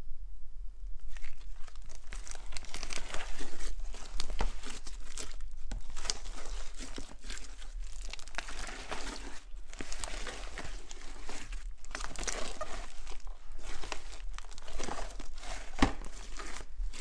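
Pink slime mixed with foam beads being kneaded and squished by hand, giving a dense, continuous crackling and crunching of beads and slime, starting about a second in.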